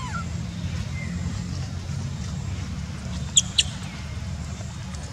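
Baby macaque giving two short, high-pitched squeaks in quick succession about three and a half seconds in, over a steady low background hum.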